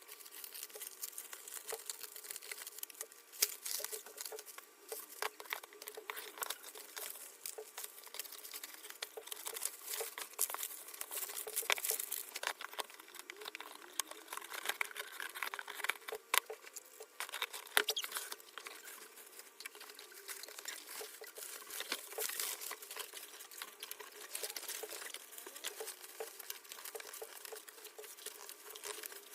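Hands handling packaging and a PC case: irregular rustling and crinkling with many small clicks and taps, a few sharper knocks among them.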